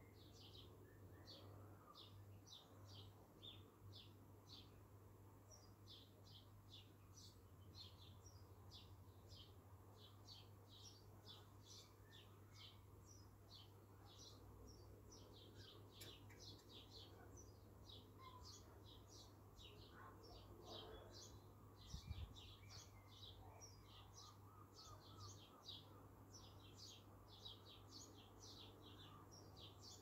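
Garden birds chirping, faint: many short high chirps in quick succession throughout. A brief low thump about three-quarters of the way through.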